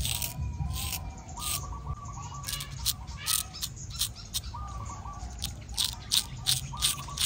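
Straight razor scraping through short stubble on the chin and neck in quick, short strokes, about two or three a second at an irregular pace. Birds call in the background with short whistled notes.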